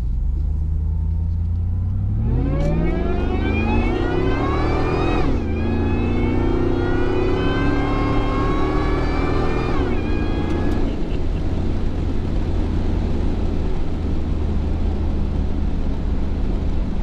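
The supercharged 5.4-litre V8 of a 2001 Ford SVT Lightning at full throttle, heard from inside the cab. Its pitch climbs steeply for about three seconds, drops at an automatic upshift about five seconds in, and climbs more slowly again. Around ten seconds in the throttle lifts and it settles into a low rumble.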